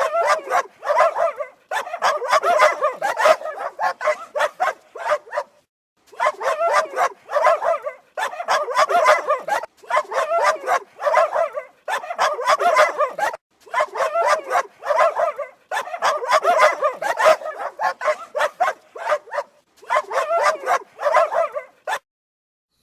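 Dogs barking in quick runs of barks separated by short pauses, stopping shortly before the end.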